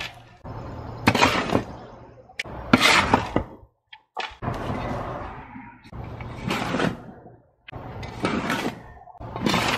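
Garden shovel scooping loose soil mix and tossing it into a planting hole, shovelful after shovelful: a scrape and a scattering thud about every one and a half seconds.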